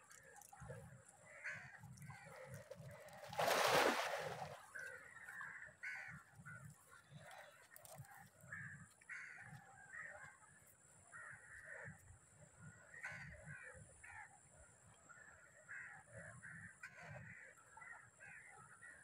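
Crows cawing again and again, scattered through a faint outdoor background, with a brief loud rush of noise about three and a half seconds in.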